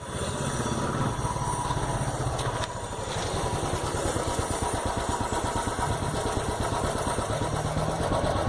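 Royal Enfield Bullet's single-cylinder engine running through its exhaust silencer, giving a steady, even thump.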